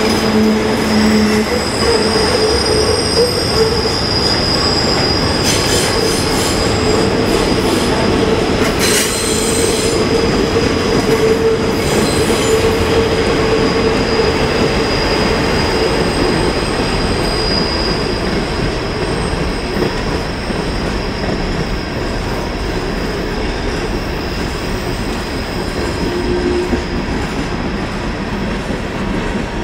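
Norfolk Southern train rolling through a sharp curve: the wheel flanges grind against the rail in a steady high squeal over the rumble of the cars, with a few metallic clanks around six and nine seconds in.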